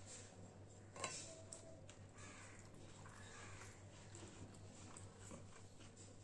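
Faint sounds of eating by hand: chewing and fingers mixing rice on a steel plate, with soft clicks and one sharper click about a second in, over a steady low hum.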